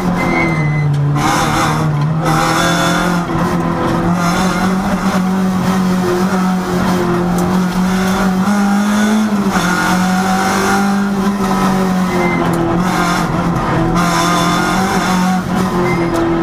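Renault rally car's engine heard from inside the cabin, running hard at high revs through a stage, its pitch rising and dropping with throttle and gear changes, over road and tyre noise.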